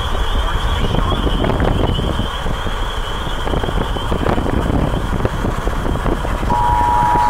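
Steady road and wind noise of a car driving at speed, heard from inside the car, with a low rumble and wind buffeting the microphone. A brief steady two-pitch electronic tone sounds near the end.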